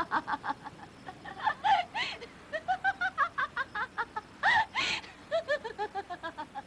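A person laughing mockingly: a long run of quick, high 'ha' syllables, with two louder, breathier bursts about four and a half seconds in.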